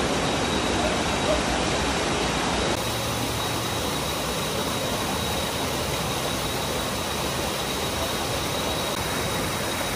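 Steady rushing of water from a small waterfall and stream, pouring over rock into a pool. About three seconds in the sound changes and drops slightly to the splash of a cascade falling onto a person sitting beneath it, with a thin steady high tone alongside.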